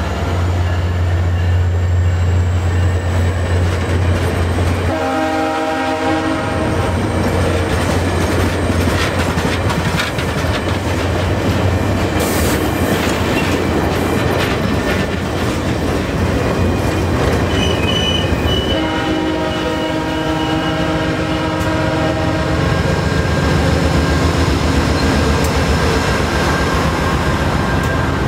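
VIA Rail diesel-hauled passenger train rolling past: wheels clicking steadily over the rail joints, a locomotive's diesel engine humming loudly for the first few seconds, and the train horn sounding twice, briefly about five seconds in and longer from about nineteen seconds in.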